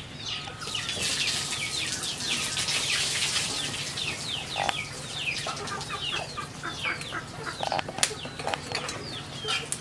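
Chickens in a yard: many short, high chirps sliding downward in pitch, repeated throughout. A rushing noise runs for a few seconds about a second in, and there are a couple of sharp clicks later on.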